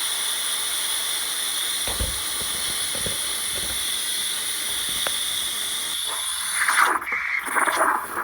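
Espresso machine steam wand hissing steadily as it steams milk, with a couple of dull knocks. The hiss cuts off suddenly about seven seconds in and is followed by a few louder rough bursts.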